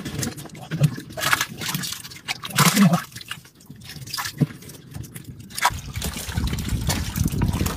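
Hands splashing and sloshing in shallow muddy water, scooping at small fish, in a few irregular splashes. A steady low rumble takes over near the end.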